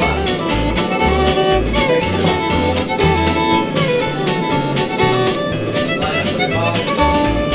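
Background music: fiddle with guitar and bass, over a steady beat.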